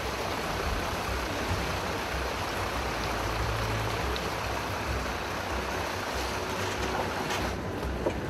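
Safari truck fording a shallow river: water rushing and splashing against the vehicle over a low, steady engine rumble.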